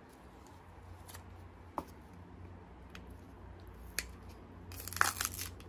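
A plastic spice-rub jar handled in gloved hands and its lid twisted open: a few faint clicks, then a short crackling rattle about five seconds in, over a steady low hum.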